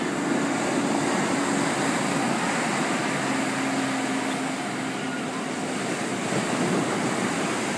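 Ocean surf: waves breaking and washing up the beach in a steady rush, with a faint low hum underneath.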